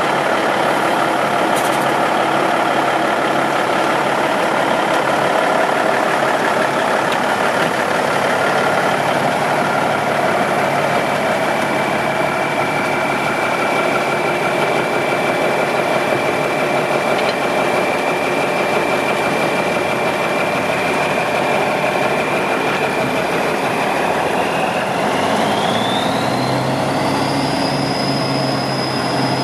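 1992 Autocar ACL tandem-axle truck's diesel engine idling steadily. Near the end a high whine rises in pitch and the engine note deepens as the truck pulls away.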